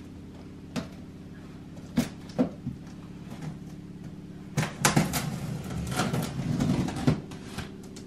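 A blade slitting the packing tape along the seam of a cardboard box: a few separate scrapes and taps, then, about halfway through, a couple of seconds of busy scraping and crackling of tape and cardboard being cut. A steady low hum runs underneath.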